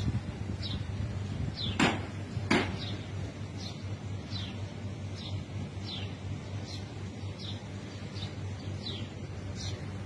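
A small bird chirping over and over: short, high, falling chirps, about four every three seconds. Two sharp cracks come about two seconds in, over a steady low hum.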